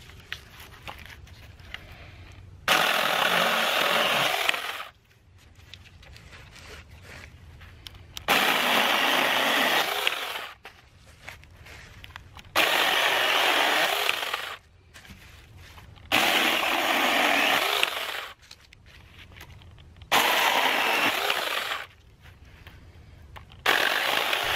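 Seesii 4-inch cordless mini chainsaw cutting through a thin dead branch in about six bursts of roughly two seconds each, with short pauses between cuts. Its chain has not been sharpened in a year of use and still cuts easily.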